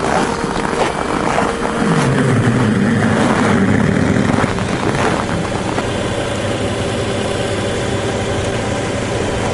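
Car engine running close by. It is louder and lower in pitch from about two to four and a half seconds in, then runs steadily, with a few knocks early on.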